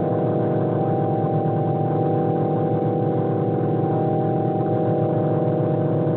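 ANS synthesizer playing a dense drone: many steady tones sounding together, with individual tones entering or dropping out now and then.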